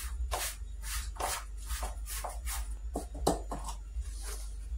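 A spoon stirring and scraping through thick cake mixture in a metal mixing bowl, in quick repeated strokes of about two or three a second.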